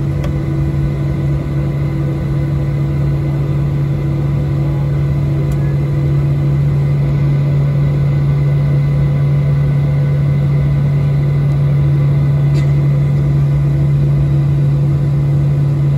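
Steady low drone inside the cabin of a Boeing 737-800 on the ground after landing, with a constant hum and a couple of faint clicks. It grows slightly louder about six seconds in.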